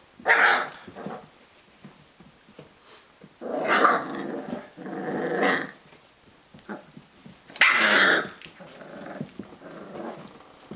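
22-day-old Rhodesian Ridgeback puppies growling as they play-wrestle, in four short loud bouts of growls, with quieter grumbles and soft scuffling between.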